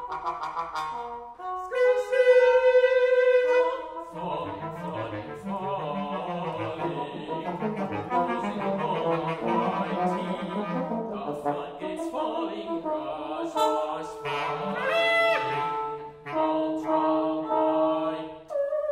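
Small new-music ensemble of trumpet, trombone and bass clarinet playing overlapping held tones. A loud, bright held note comes about two seconds in, then a dense cluster of tones, then a bending pitch a little past the middle.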